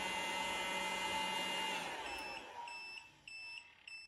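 Electric heat gun running steadily on the Allpowers R600 power station's inverter, then cutting out about two seconds in and spinning down as the power station trips on overload. Then four short high beeps, about two a second: the power station's overload alarm.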